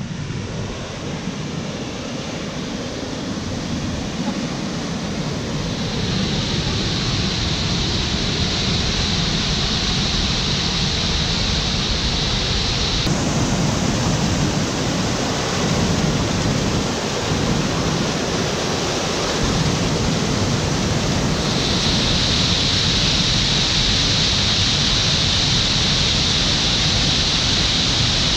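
River waterfall in high flow, brown whitewater pouring and churning over rock ledges: a loud, steady rush of water that grows louder over the first few seconds, with two sudden shifts in tone later on.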